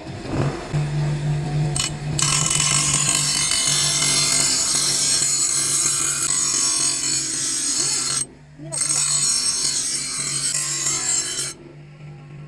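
An electric power tool running with a steady motor hum while abrading a workpiece, a rough rasping noise over it; the abrading breaks off briefly about eight seconds in and again near the end.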